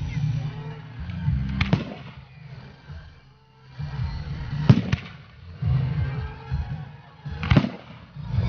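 Fireworks display: aerial shells bursting with sharp bangs, one about two seconds in, a quick double bang near the middle and another near the end.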